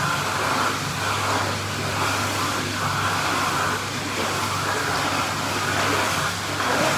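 Pool water churning, a steady rushing noise with a constant low hum under it, and water splashing up close by about six seconds in.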